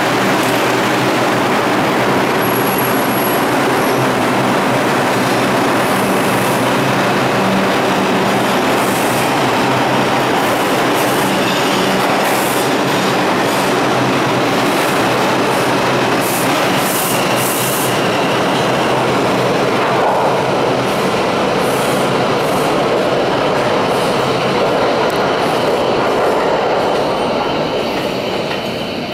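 R142 subway trains moving through the station: a loud, steady rumble of wheels on rail and traction motors, with some high wheel squeals and clicks midway, easing off near the end.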